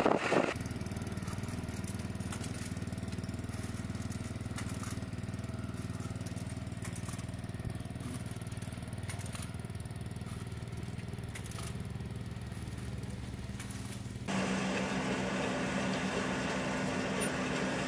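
A steady mechanical hum with a few faint clicks. About fourteen seconds in it changes abruptly to a louder, steadily running engine of an onion harvester.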